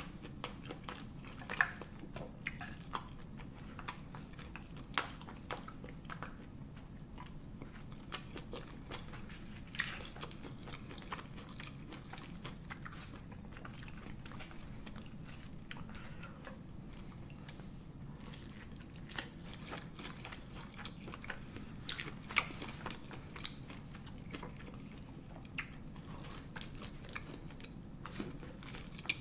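Close-miked chewing of chewy Korean spicy rice cakes (tteokbokki): wet mouth sounds with irregular sharp clicks and taps scattered through, over a steady low background hum.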